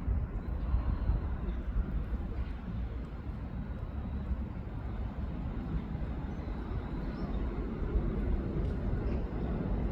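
Steady, unbroken rush of flowing water, deep and even, with a few faint clicks.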